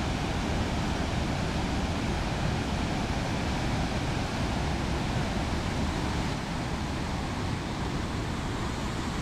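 Waterfall rushing steadily: the Traun river pouring over the rock steps of the Traunfall, a continuous even wash of water noise.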